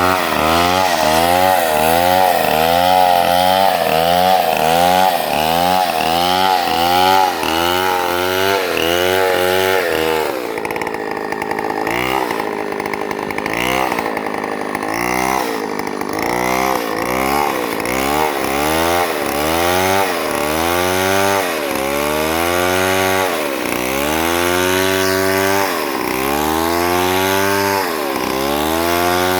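Chainsaw running under load while milling a log into lumber, its engine pitch rising and falling in a steady rhythm. About ten seconds in the sound weakens and roughens for several seconds, then the swings return, slower than before.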